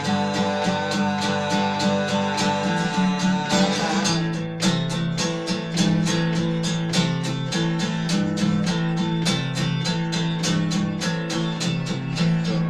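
Acoustic guitar strummed live in a quick, even rhythm. Over the first few seconds a sung note is held with a wavering pitch and then trails off, leaving the guitar alone.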